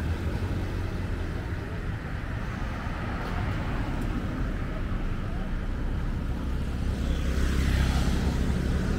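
Road traffic on a city street: a steady low rumble of passing cars, growing a little louder near the end.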